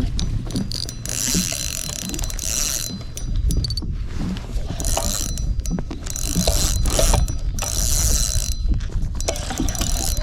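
Fishing reel ratcheting in several spells of a second or two each while a hooked bass is played. Under it there is a steady low rumble.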